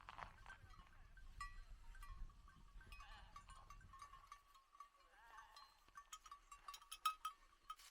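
Sheep bleating faintly, with the clinking and ringing of their bells.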